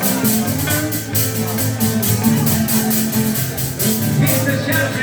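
Music with pitched instruments over a steady percussive beat.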